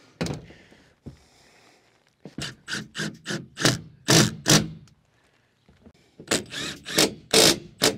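Two bursts of sharp knocks and scrapes, about half a dozen each, from hands-on work on the roof while new solar panels are being pulled off the pallet and set on the rails.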